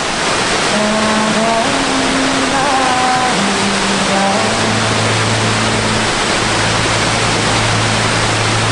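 Loud, steady roar of a big mountain waterfall plunging over rock close by. Faint held musical notes sound over it, with a low steady note joining about halfway through.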